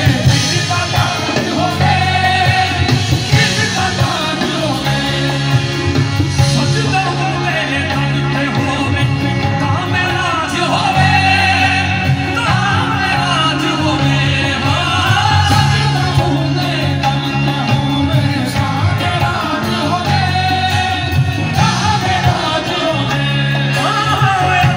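Live qawwali: sung vocals over continuous instrumental accompaniment, heard from within the crowd.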